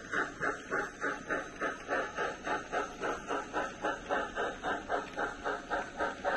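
Steady steam-locomotive exhaust chuffs, about four a second, played through the speaker of a sound-equipped model steam locomotive as it hauls its train.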